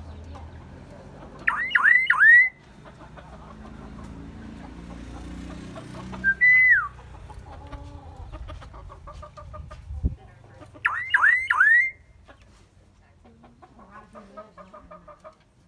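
Myna bird whistling loudly: twice a quick run of about four rising whistles, and between them a single whistle that rises and then falls.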